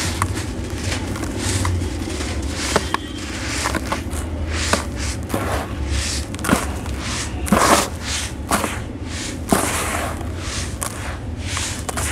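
Dry black sand-and-cement mix pouring from cupped hands into a plastic tub and being worked by hand: repeated gritty, hissing streams of grains, with scattered small sharp clicks.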